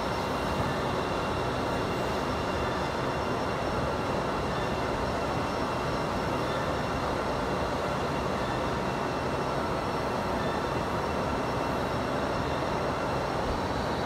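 Steady industrial machinery noise in a large factory hall: a constant, unbroken noise with a few faint high steady tones running through it.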